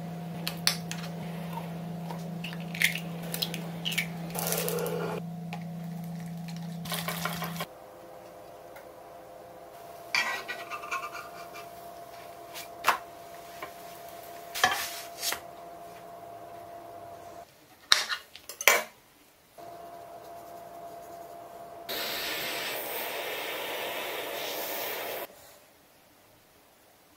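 Kitchen utensil sounds from a run of short clips: metal utensils clinking and scraping against a ceramic bowl and a frying pan. A low steady hum runs under the first several seconds, two sharp knocks come past the middle, and a few seconds of hiss come near the end.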